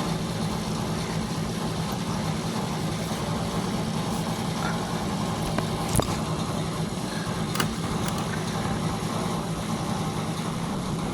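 A steady machine hum over a constant noise, with two sharp clicks, one about halfway through and one a second and a half later.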